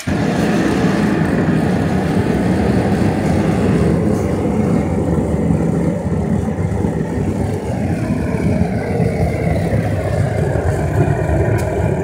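Air blower forcing air into a homemade metal-melting furnace, running steadily with a loud rushing noise as it fires the furnace for a copper melt.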